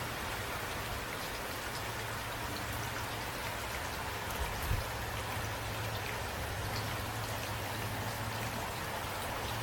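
Steady rain, with individual drops ticking against a surface over an even hiss, and a low steady hum underneath.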